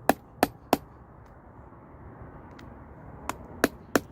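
Sharp taps peening a snap's post over on a small anvil to set a leather snap: three quick strikes in the first second, a pause of about two and a half seconds, then three more near the end.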